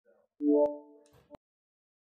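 A short electronic interface chime from a VR headset's menu: several tones sounding together as a chord, starting sharply about half a second in and fading away over about a second, with two sharp clicks.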